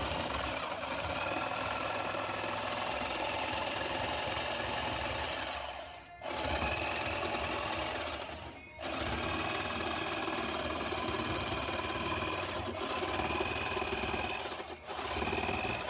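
Corded electric jigsaw cutting through a wooden shelf board, its motor running with a steady high whine. The saw stops and restarts a few times, its pitch winding down and then rising again, most clearly about six and nine seconds in.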